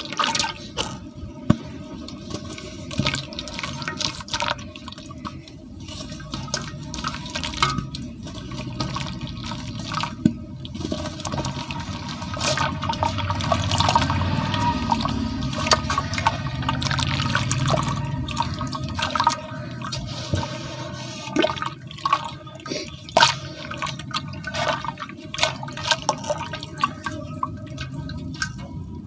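Hands splashing and swishing in a basin of cement-clouded water while a soaked lump of pure cement is dipped and crumbled apart, with many small wet splashes and drips. It gets louder and busier in the middle.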